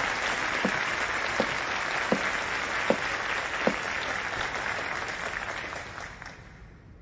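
Recital audience applauding, dying away about six seconds in. Under the clapping, six evenly spaced footsteps, about three-quarters of a second apart, cross the stage and stop about four seconds in.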